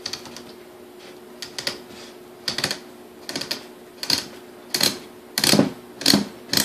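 Grind-adjustment collar of a KitchenAid A9 coffee mill being twisted by hand, its spring-loaded detent pins clicking in a quick ratcheting run with each turn, the clicks coming in clusters every half second or so and getting louder near the end.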